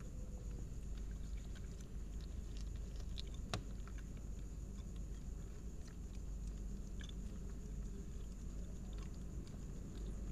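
A kitten chewing and eating fish, with scattered soft wet clicks and smacks and one sharper click about three and a half seconds in. Under it runs a steady low rumble and a thin, steady high whine.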